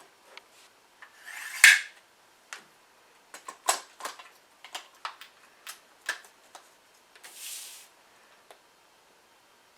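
Dual-thrust caulk gun being worked: a metal rod sliding with a rasp that ends in a sharp click, then about a dozen metallic clicks from the trigger and rod-release mechanism, and another short sliding rasp near the end.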